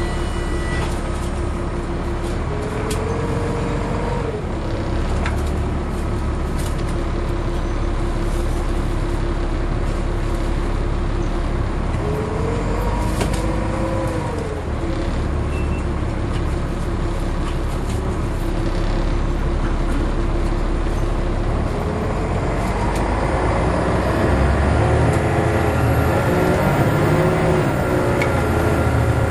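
Volvo B7LA bus's six-cylinder diesel engine and driveline heard from inside the Wright Streetcar saloon while under way, a steady drone with scattered rattles and a brief whine that rises and falls twice. Towards the end the engine note climbs and gets a little louder as the bus accelerates.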